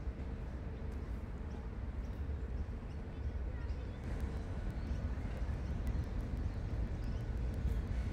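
Outdoor city-park ambience: a steady low rumble with faint, scattered short ticks over it.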